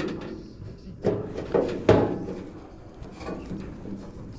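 A few knocks and clatters of hard objects being handled, the loudest about two seconds in, with lighter scraping and rustling around them.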